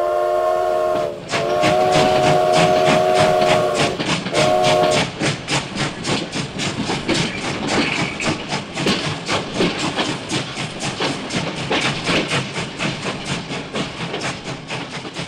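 Steam locomotive whistle blowing three blasts, short, long and short, then the train chugging in a fast, even rhythm that slowly fades near the end.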